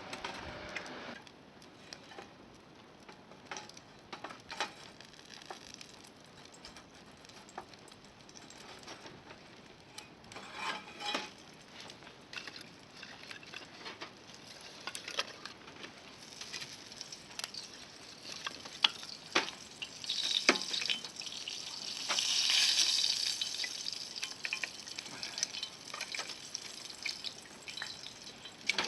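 Wood fire crackling with scattered sharp pops over a faint hiss; a louder hissing sizzle rises for a couple of seconds about three-quarters of the way through.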